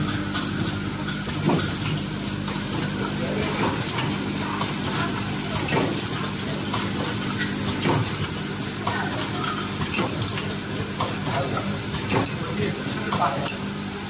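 Closed-end plastic zipper slider mounting machine running: a steady motor hum under continuous rapid clicking and clattering from its mechanism, with a heavier stroke about every two seconds.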